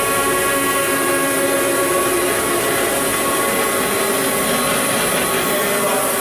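1999 Fidia D218 vertical CNC machining center running under power: a loud, steady machine hum with several steady whining tones over a hiss.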